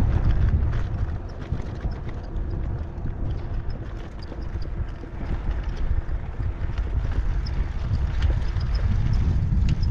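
Wind buffeting the camera microphone with tyre rumble from a bicycle rolling over rough asphalt, an uneven low rumble with small light ticks and rattles.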